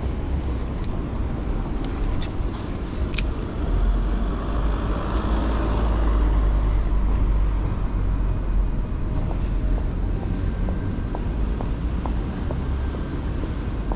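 Low rumble of road traffic, with a car passing that swells and fades around the middle. A few sharp clicks come early, and light ticks come near the end.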